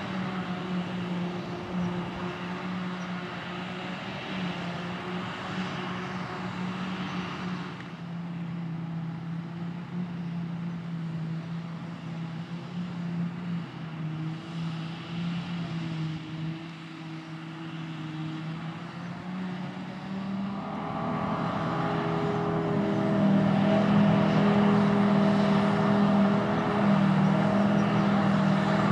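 Diesel engines of a Claas Jaguar 870 forage harvester and the tractor running alongside it, working steadily while the harvester picks up and chops grass for silage. The drone gets quieter and duller about eight seconds in, then grows louder about twenty-one seconds in.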